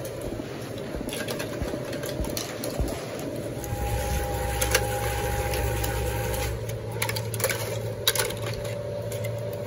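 Steady hum of a machine running, with a deeper hum joining about three and a half seconds in, over scattered light clicks and knocks of hollow plastic broom-handle pieces being handled and trimmed by hand.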